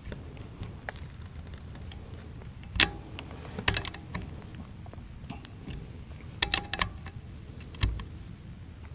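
Small metallic clicks of an AR-15 front sight post being turned down with a sight adjustment tool, the detent clicking as it moves. The clicks come scattered: one sharp click about three seconds in, a few together just after, a short run of clicks around six and a half seconds, and one more near the end.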